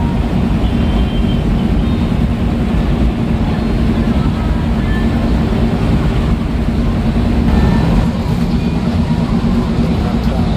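Intercity bus driving along: a steady engine drone and road noise.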